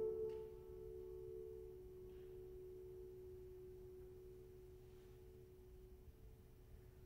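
Grand piano strings left ringing after a note struck just before, two pure tones slowly dying away over about six seconds, the lower one lasting longest.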